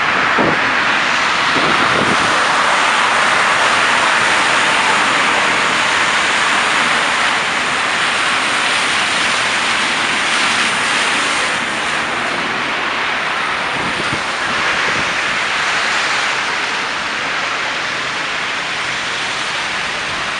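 Steady rush of passing traffic, a little louder in the first half and easing slightly later on.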